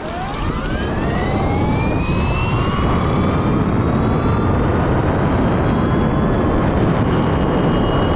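Bafang BBS-HD mid-drive motor on a 72V e-bike under full-throttle launch: its whine climbs steeply in pitch for the first couple of seconds as the bike accelerates hard from a standstill, then levels off at speed. A loud rushing noise builds with it.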